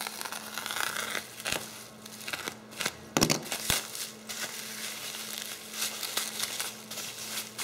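Bubble wrap crinkling and rustling as it is handled and pulled off a long wrapped part, with one loud sharp crack about three seconds in.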